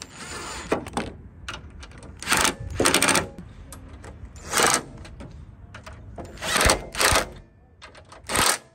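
DeWalt 18V cordless impact gun hammering in several short bursts as it runs down and snugs the strut tower nuts holding a strut brace bracket.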